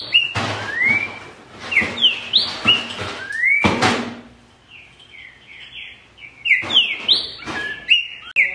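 Green-winged saltator (trinca-ferro) singing loud, clear whistled phrases, each note sliding up or down. The phrases come in quick runs, stop for about two seconds in the middle, then start again, with a few short bursts of hiss-like noise in between.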